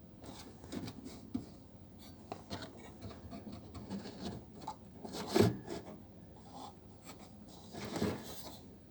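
Wood rubbing and scraping as a reed-switch mounting rail is shifted by hand under a pedalboard, with scattered light clicks and two louder scrapes, about five and eight seconds in.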